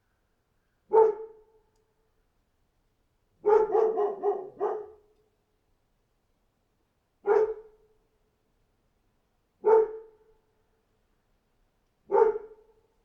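A dog barking: a single bark about a second in, then a quick run of four barks, then three more single barks spaced about two and a half seconds apart, with silence between them.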